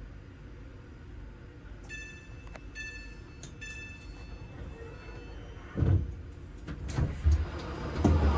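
Train passenger door: three short electronic beeps as the door-open button is enabled, then a heavy clunk as the door releases and further thuds as it slides open.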